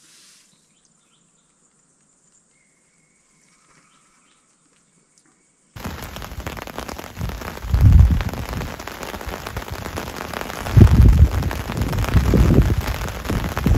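Near silence, then about halfway through a sudden start of heavy storm rain, a steady loud hiss, with several strong low gusts of wind buffeting the microphone, the loudest parts.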